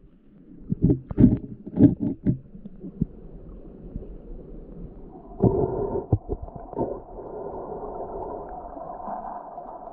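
Muffled underwater stream sound: a run of dull knocks in the first couple of seconds, then a steady rushing of current from about five and a half seconds in.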